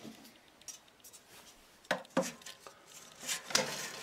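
Cloth brewing bag being fitted over the rim of a stainless-steel boiler by hand: a low rustle of fabric, then a few sharp knocks and scrapes against the metal pot, two about two seconds in and more at about three and a half seconds.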